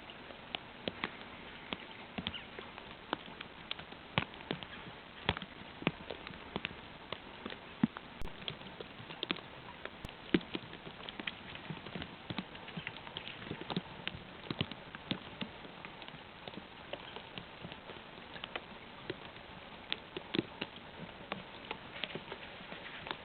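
Wet snow and drips falling onto dry leaves: scattered, irregular light ticks and taps, a few a second, over a steady soft hiss.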